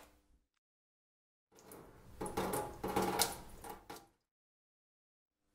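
A run of knocks and clattering handling sounds starting about a second and a half in and lasting a few seconds.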